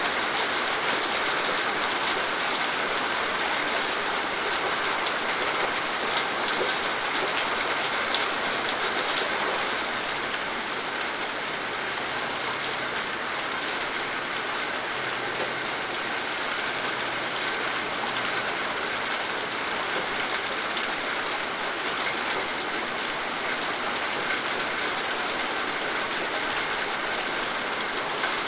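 Steady rain falling, a dense patter of drops on surfaces with a few sharper drop ticks, a little softer after about ten seconds.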